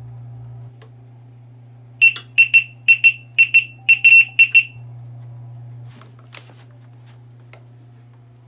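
Begode EX-N electric unicycle sounding its hall-sensor-failure alarm: a quick run of about a dozen short, high beeps starting about two seconds in, over a steady low hum. The alarm is the sign of a failed motor hall sensor, a fault that shuts off the gyro and can throw the rider.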